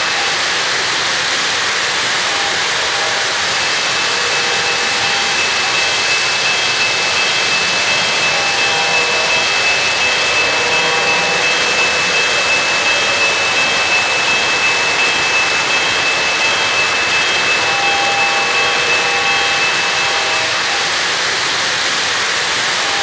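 O-gauge three-rail model trains running on the layout: a steady rolling roar of metal wheels on the track, with a thin high whine held throughout.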